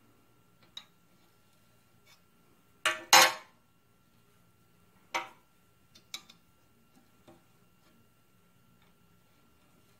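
Steel adjustable wrench clanking against a cast-iron engine block as a bolt is turned out of it: a handful of sharp metallic knocks, the loudest a double clank about three seconds in, over a faint steady tone.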